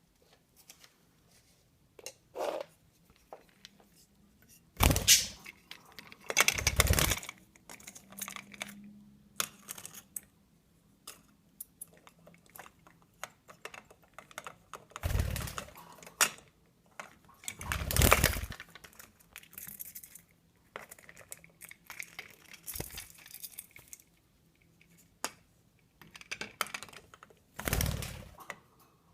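Parrots scuffling: a scatter of small clicks and scratches from claws and beaks, broken by about five loud, short rustling flurries.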